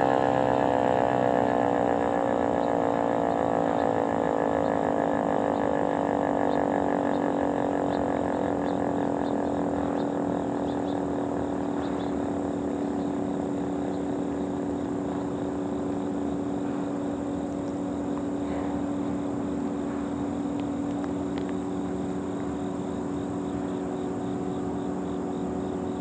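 Federal Signal outdoor warning sirens winding down at the end of a test: a falling wail over the first couple of seconds. Then a steady low drone over a constant hiss, slowly fading.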